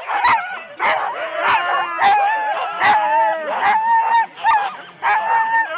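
A chorus of harnessed Siberian huskies barking, yipping and whining at once. Sharp barks come about every half second to second over long wavering whines and howls. This is the excited clamour of sled dogs held back at a race start.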